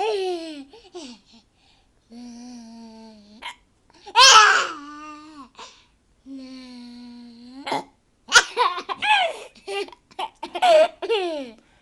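A young child singing long, steady notes that are cut off by sharp hiccups, the loudest about four seconds in. The second half breaks into quick bursts of laughter.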